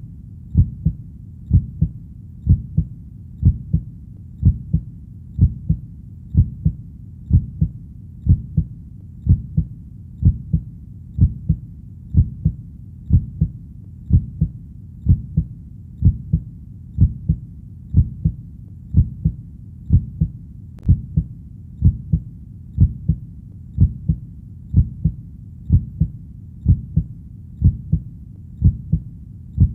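Steady heartbeat: a low double thump (lub-dub) repeating evenly about once a second.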